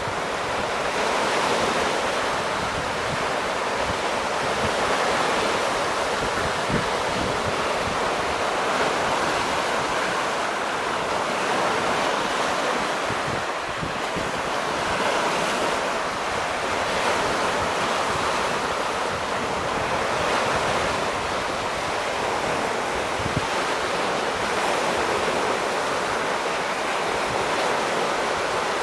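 Lake Superior waves breaking on the shore, a steady loud rush of surf that swells and eases gently, with wind on the microphone.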